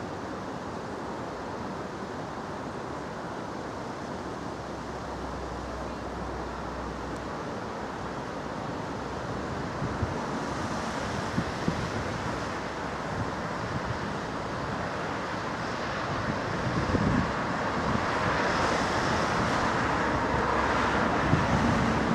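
Small steam saddle-tank locomotive approaching along the line, its working sound growing louder in the second half with a rising hiss. Steady wind and road-traffic noise lie underneath.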